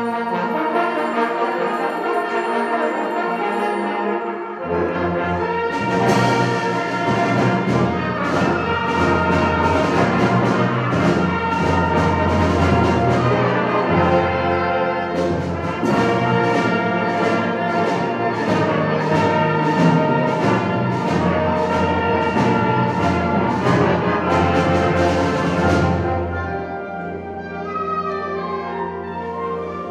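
High school symphonic band playing, with the brass to the fore. The low bass comes in about four seconds in, and sharp strokes keep time about twice a second. Near the end the band drops to a quieter, thinner passage.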